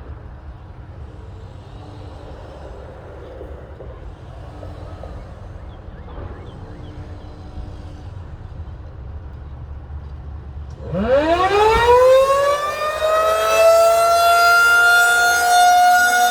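Low background rumble for about eleven seconds, then a Federal Signal 2001-SRN outdoor warning siren starts and winds up for a scheduled test. Its pitch rises quickly, then levels off into a loud steady tone.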